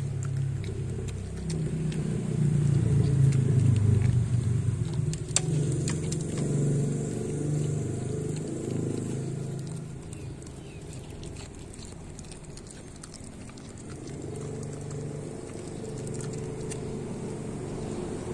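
A dog chewing and licking pieces of pork from a stainless steel bowl, with scattered wet clicks and smacks. Under it runs a low rumble that is loudest a few seconds in and dies down about halfway.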